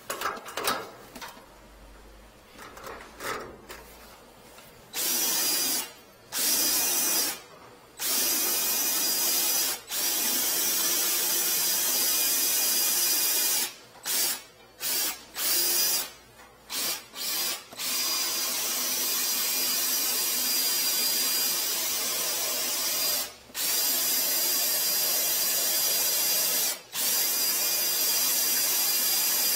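Drill-driven flexible shaft drain cleaner spinning its cable inside a drain pipe, run in stretches with the trigger released and pressed again many times. The pipe vibrates as the spinning shaft breaks up hardened grease. A few light handling clicks come before the motor first starts, about five seconds in.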